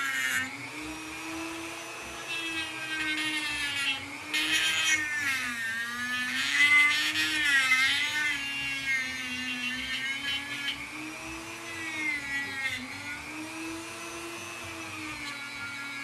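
Dremel rotary tool spinning a polishing wheel against the brass case of a Zippo lighter. It makes a steady motor whine whose pitch wavers up and down as the wheel is pressed onto the metal, and it grows louder and harsher for a few seconds in the middle.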